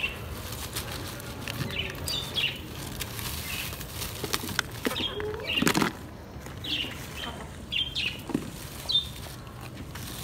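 A thin plastic carrier bag crinkling and rustling as cauliflower stalks and leaves are pulled out of it by hand. Short bird chirps come every second or so.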